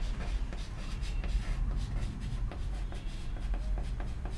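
Chalk writing on a chalkboard: a run of short scratchy strokes as words are written out, over a steady low hum.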